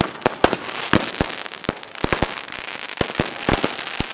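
Consumer fireworks going off in a dense, irregular run of sharp bangs, several a second, over a steady hiss.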